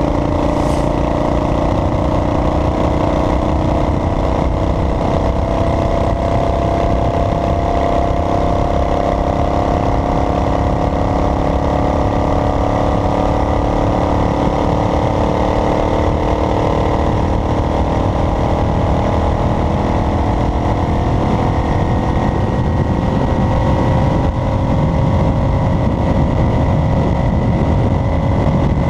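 Road vehicle's engine running while driving, its note climbing slowly over the first half. The engine note fades into a steadier road rumble in the last several seconds.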